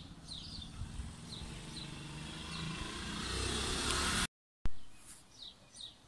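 Sparrows chirping in short high notes, while the noise of a passing vehicle swells louder over them. About four seconds in, the sound drops out for a moment; after a click the chirping carries on.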